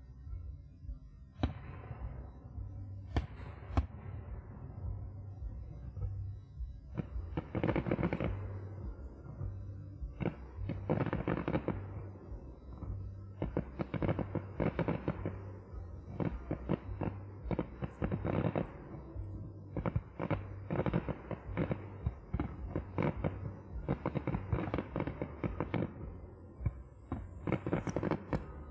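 Aerial fireworks display: a couple of sharp single reports a few seconds in, then repeated clusters of rapid crackling bursts through the rest, over music with a steady bass line.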